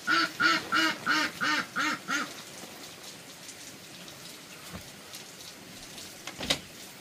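An animal calling in a quick run of about seven evenly spaced calls, about three a second, that stops about two seconds in. A faint steady hiss follows, with one short sharp knock about six and a half seconds in.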